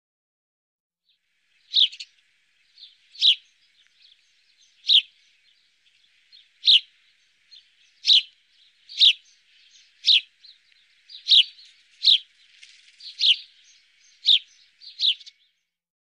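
Eurasian tree sparrow chirping: a series of about a dozen short single chirps, one every second or so, starting about two seconds in and stopping near the end.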